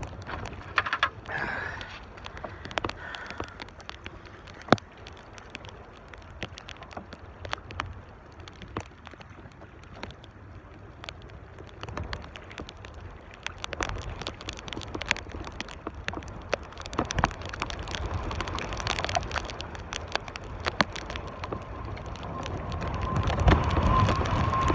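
Strong gusty wind buffeting the microphone, a low uneven rumble that swells near the end, with many scattered sharp clicks and knocks. A thin steady tone comes in near the end.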